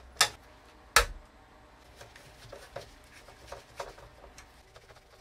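Screwdriver turning screws inside a plastic cassette-radio cabinet: two sharp clicks in the first second, then lighter irregular ticks and small knocks of the tool and screws against the plastic.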